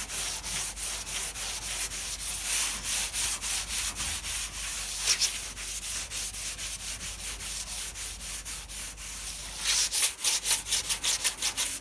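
Fine sponge sandpaper rubbed back and forth over the oxidised paint of a car bonnet, in quick even strokes about three a second, growing louder and faster near the end. The rubbing takes off the oxidised layer and brings the colour back.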